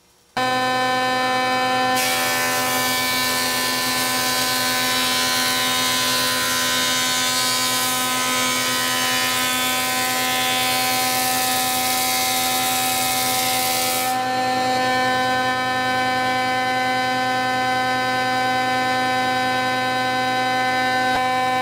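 A machine motor starting up abruptly and running with a steady whine, typical of a power planer. A loud hiss joins for about twelve seconds from about two seconds in and then stops, while the whine runs on unchanged.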